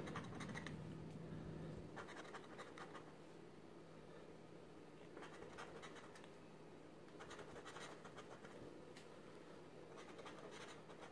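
Faint scraping of a small metal bar rubbing the coating off a scratch-off lottery ticket, in short bursts of strokes with pauses between.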